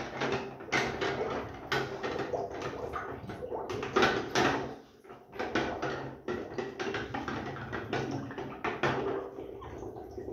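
Glass beer bottles being pushed under sterilising solution in a plastic bucket: water sloshing, with the bottles repeatedly knocking and clinking against one another and the bucket.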